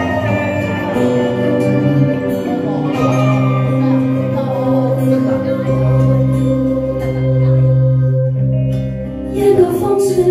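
A woman singing a pop ballad through a handheld microphone over a karaoke backing track, holding long notes. Sharp percussion taps come into the backing near the end.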